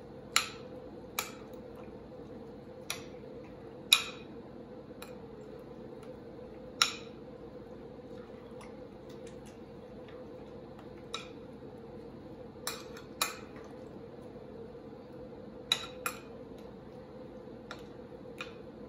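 Metal spoon stirring chopped salsa in a glass bowl, with sharp, irregular clinks of the spoon against the glass, a dozen or so, a few of them loud. A faint steady hum runs underneath.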